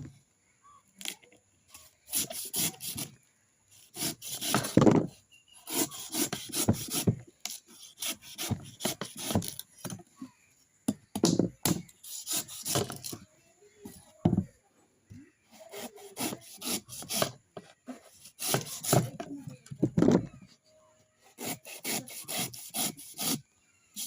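Coconut being scraped or worked by hand: bursts of quick rasping, rubbing strokes separated by short pauses, repeating all through.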